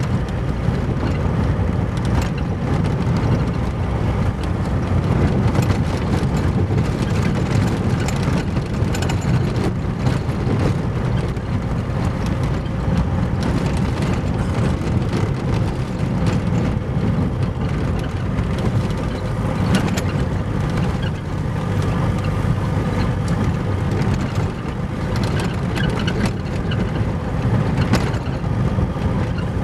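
Car driving on a rough gravel road, heard from inside the cabin: a steady low rumble of tyres and suspension on the loose gravel, broken by frequent short knocks and clatters as it jolts over the uneven surface.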